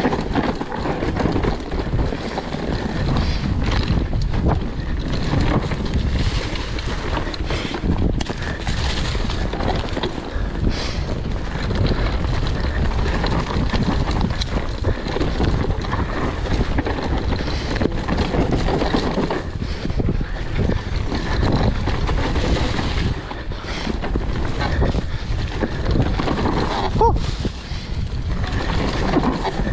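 Wind rushing over the microphone with the rumble and rattle of a mountain bike riding a rough dirt trail, with many short knocks from bumps throughout.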